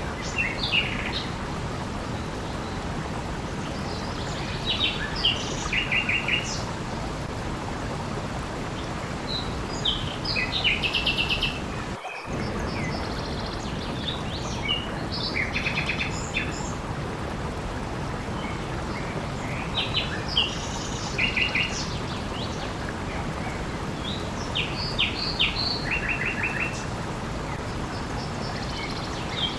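Steady rushing water with small birds chirping over it every few seconds in short, rapid trills. The water sound drops out for an instant about twelve seconds in.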